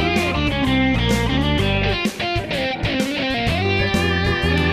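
Background rock music with electric guitar and bass.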